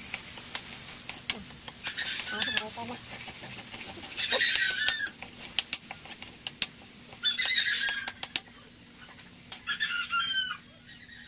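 Metal ladle clicking and scraping against a steel wok as corned beef is stirred and fried, with a light sizzle. Over it an animal call repeats about every two and a half seconds, each call short and high with falling tones; these calls are the loudest sound.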